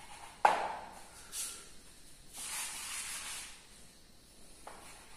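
Chalk writing on a blackboard: a sharp tap as the chalk meets the board about half a second in, then scratchy strokes, the longest one about two and a half seconds in, and a light tap near the end.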